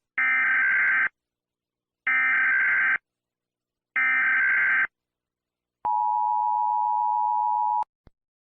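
Emergency Alert System SAME header: three identical bursts of warbling digital data tones, about a second each, then the EAS two-tone attention signal held steady for about two seconds, which announces an alert message.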